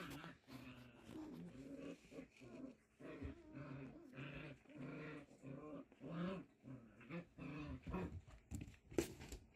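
Six-week-old Pyredoodle puppies play fighting, making short puppy growls one after another. A couple of sharp knocks come near the end.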